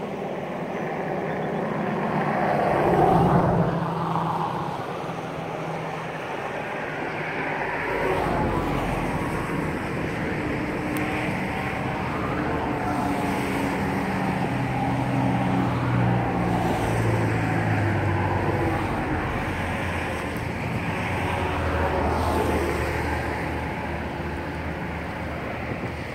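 Road traffic on a highway bridge: several cars passing one after another, engine hum and tyre noise swelling and fading, the loudest pass about three seconds in.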